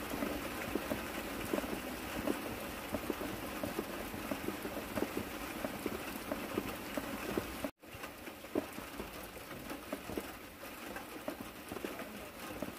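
Steady rain, a dense patter of drops falling on a pond; the sound cuts out for an instant about three-quarters of the way through.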